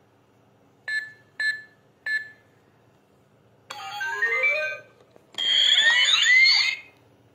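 Toy electronic fingerprint money safe: three short keypad beeps, then a rising run of electronic tones as the keypad lights turn green, the safe's signal that the code is accepted. It is followed by a louder burst of warbling, gliding electronic tones from the toy's speaker.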